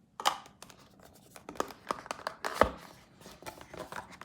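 Cardboard box being opened and handled: a string of sharp clicks, taps and short rustles of cardboard and paper, the loudest about a third of a second in and again after two and a half seconds.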